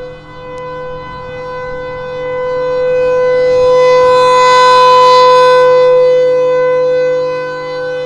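Federal Signal Thunderbolt 1000 mechanical civil-defense siren sounding a steady single tone while its horn rotates. The sound swells to its loudest about halfway through as the horn sweeps round to face the listener, then fades as it turns away.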